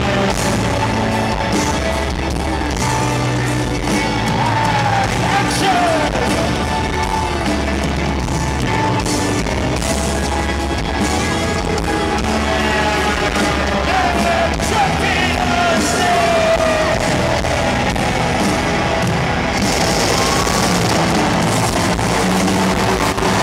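Live rock band playing a heavy guitar passage, with bending lead-guitar notes and shouts from the crowd in an arena. Near the end a hissing rush joins as stage pyrotechnic fountains fire.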